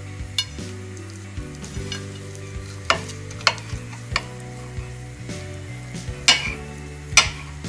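Kitchen knife slicing through a jellied chicken aspic loaf, with several sharp clicks as the blade meets the glass plate beneath it.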